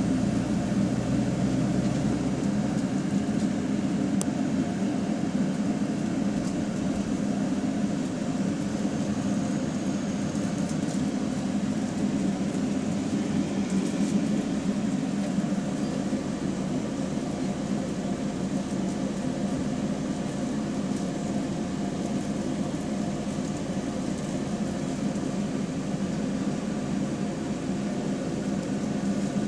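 Diesel engine of a bus with a leaking exhaust, running with a steady drone. Its deepest rumble fades about three seconds in.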